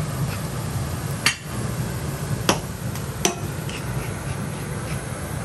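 Three sharp clicks or knocks from utensils at a steel teppanyaki griddle, the first about a second in and the other two close together a little later, over a steady low hum.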